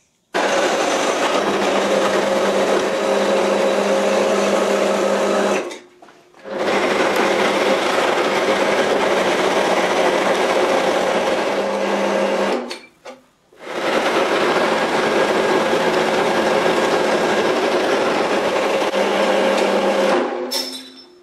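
Horizontal metal-cutting bandsaw running and cutting through square steel tubing: a steady motor hum under the sound of the blade cutting. It comes in three long stretches separated by two brief breaks.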